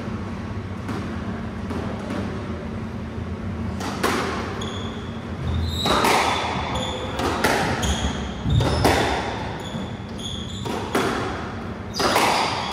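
A squash rally: the hard rubber ball struck by rackets and smacking off the walls every second or so from about four seconds in, the impacts echoing around the enclosed court, with short high squeaks of shoes on the wooden floor between strokes.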